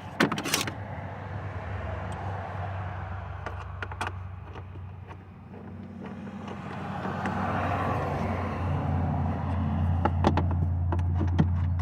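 A steady low engine drone, like a motor vehicle running, getting louder about halfway through, with scattered sharp clicks and taps.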